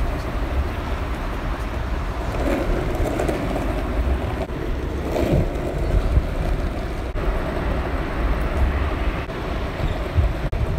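Skateboard wheels rolling over cracked asphalt: a steady low rumble.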